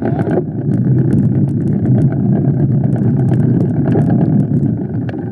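Riding noise from a mountain bike on a dirt trail: a steady low rumble of wind buffeting the microphone and tyres rolling, with many small clicks and rattles scattered throughout.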